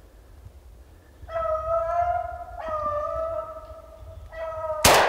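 A beagle bays three times, two long bays and then a short one. Near the end comes a loud gunshot that rings out through the woods.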